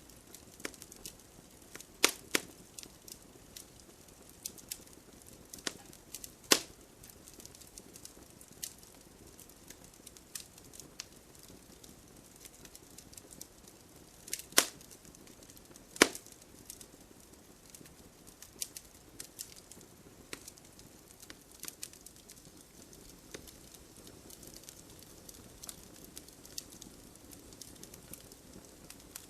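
Wood fire burning in a fireplace: irregular crackling with scattered sharp pops, a handful of them much louder, over a faint low rustle of the flames.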